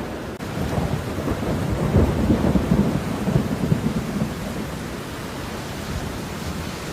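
Steady rainfall with a low rumble of thunder that builds about a second in, peaks over the next few seconds and dies away.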